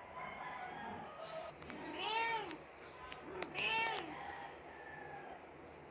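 Persian mother cat meowing over her dead kitten: softer mews, then two loud drawn-out meows about two seconds in and again a second and a half later, each rising and then falling in pitch. A few faint sharp clicks fall between them.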